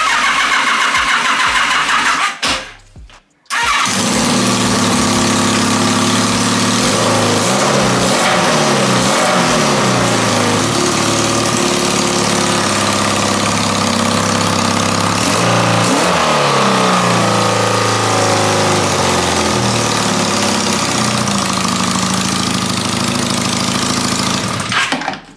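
Carbureted 1200cc four-cylinder Kawasaki superbike engine turning over on its starter for about two seconds, then catching after a brief pause and running loudly. It is blipped up and down in revs several times and is cut off near the end. It runs rough, which the owner puts down to the exhaust not sealed (no gasket), no air filter and possibly dirty carbs.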